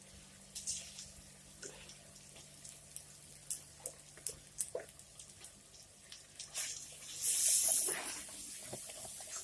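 Kitchen sink sounds: scattered small clicks and splashes of handling, then a brief loud gush of running water about seven seconds in.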